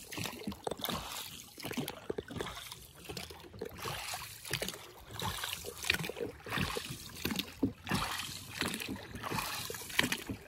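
Oars stroking through the water of a small rowing boat, each stroke a splash and swirl of water, in an uneven rhythm of roughly one stroke a second.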